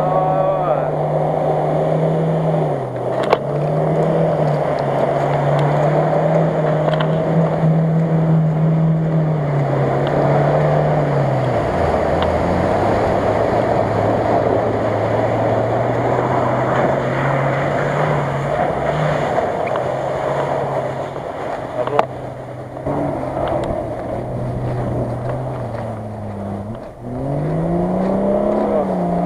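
Off-road SUV engine labouring through deep mud and water, holding steady revs that drop about ten seconds in and climb again near the end.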